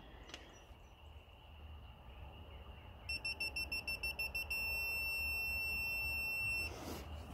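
Digital torque-angle wrench beeping as a connecting-rod bolt is turned through the 75-degree angle step. About three seconds in comes a run of quick beeps, about seven a second, then one steady beep for about two seconds as the target angle is reached.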